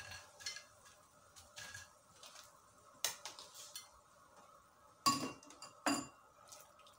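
Metal slotted frying spoon clinking against the aluminium frying pot and the plate while fried pakoras are lifted out: a handful of light clinks, the two loudest about five and six seconds in.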